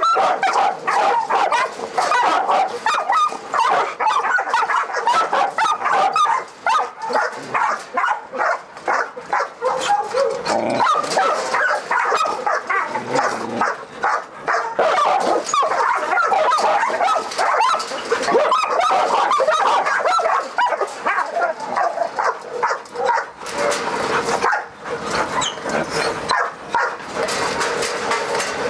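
Young pit bull–pointer cross dog barking and yelping aggressively in a rapid, unbroken string.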